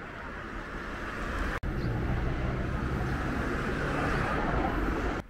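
Road traffic noise, the steady hiss of passing vehicles, broken by an abrupt cut about a second and a half in and louder after it.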